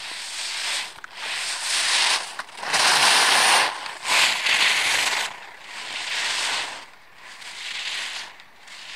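Slalom skis carving across hard-packed snow, the edges scraping in a hiss that swells with each turn, about one turn a second, loudest in the middle.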